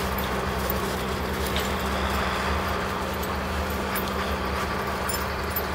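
A steady low mechanical hum, like a distant engine, holding an even level throughout.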